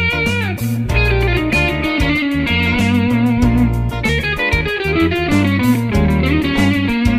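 Stratocaster electric guitar playing fast single-note funk-jazz lead lines in B-flat mixolydian, over a backing track with bass and a steady drum beat.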